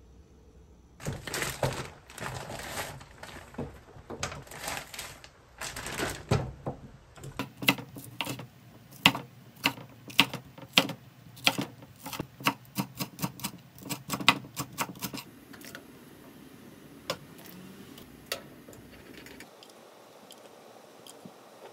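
Kitchen knife slicing green chili peppers on a wooden cutting board: quick, irregular knocks of the blade on the board, about three a second, that thin out and stop. Before the chopping starts, several short noisy swishes.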